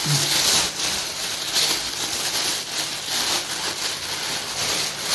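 Plastic bags crinkling and rustling as they are handled.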